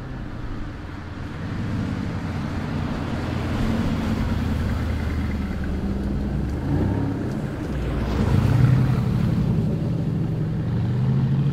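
Mercedes-AMG GT prototypes' twin-turbo V8 engines running as the cars drive on snow, the engine note shifting with the throttle. The engine gets louder about eight seconds in as a car accelerates.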